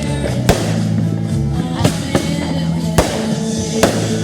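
Fireworks bursting: about four sharp bangs, roughly a second apart, over loud music with sustained notes.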